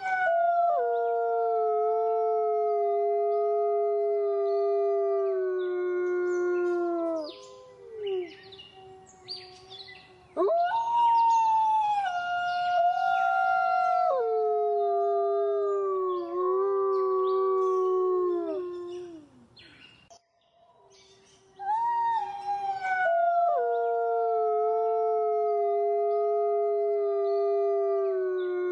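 Wolves howling: three long howls, each rising briefly, then sliding down and held for several seconds before falling away. A few short, faint calls fill the gap between the first two.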